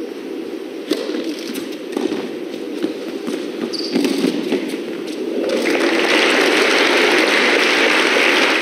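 Tennis ball struck back and forth in a rally, sharp hits about once a second over low hall noise; about five and a half seconds in, the crowd bursts into applause as the point ends.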